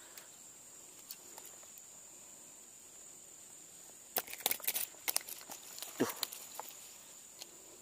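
Sharp clicks and rattles as a small hampala barb is handled and unhooked from a topwater lure, then a single soft thud about six seconds in as the fish drops onto wet mud. A steady high whine runs underneath.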